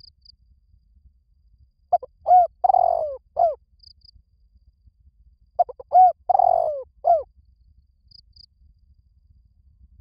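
Spotted dove cooing: two phrases a few seconds apart, each a few short arched coos around one longer, drawn-out coo.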